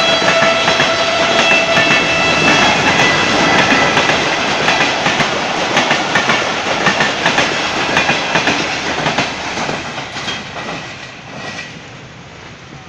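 Passenger express coaches rolling past at speed, a dense rush with wheels clacking over rail joints and a steady high whine in the first couple of seconds. The noise fades away between about nine and twelve seconds in as the end of the train passes.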